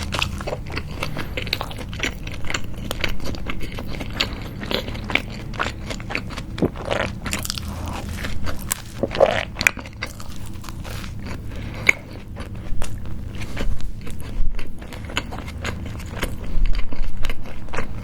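Close-miked biting and chewing of a homemade hamburger, the toasted bun crunching, with irregular wet smacks and crackles.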